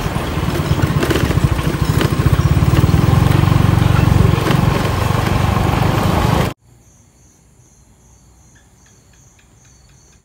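A small motorbike engine running steadily with a low, even pulse. It cuts off abruptly about two-thirds of the way through, leaving a faint hiss with a few small clicks.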